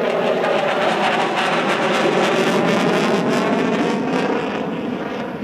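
Twin turbofan engines of a Sukhoi Su-30SM fighter passing overhead: steady jet noise that swells at the start and eases off slightly near the end.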